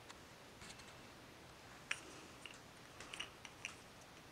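A few faint, scattered clicks and light taps of small objects being handled, over quiet room tone; a slightly sharper click comes about two seconds in and a small cluster of clicks around three seconds in.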